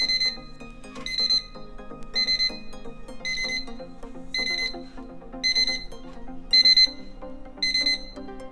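Wood-grain cube LED alarm clock's alarm going off at its set time: short electronic beep bursts repeating about once a second.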